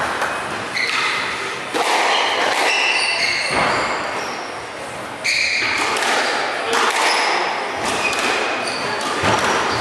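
Squash rally: the ball smacking off rackets and walls in irregular sharp hits, with rubber-soled court shoes squeaking on the wooden floor. There is a short lull about halfway through, then play picks up again with a loud hit.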